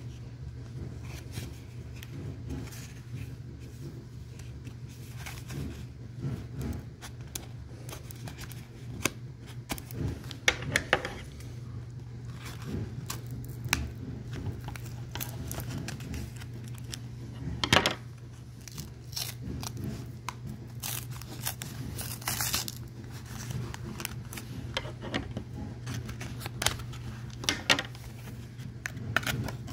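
Cardboard-and-plastic retail packaging of a trading card pack being handled and torn open: irregular crinkling and tearing, with several sharper crackles, over a steady low hum.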